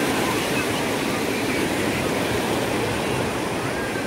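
Surf on a shallow sandy beach: small waves breaking and washing in, a steady rushing of foaming water.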